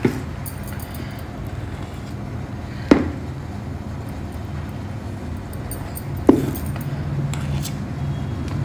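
A serving utensil clinking sharply against the idli cups three times, each strike ringing briefly, as batter is poured into them, over a steady low hum.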